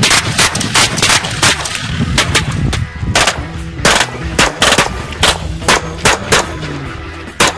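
Gunfire: a long string of sharp single shots, irregularly spaced, two or three a second.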